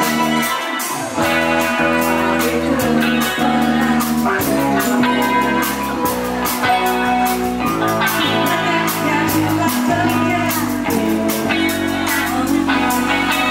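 Live rock band playing: electric guitar, bass guitar and keyboard over a steady drum beat, with a woman singing.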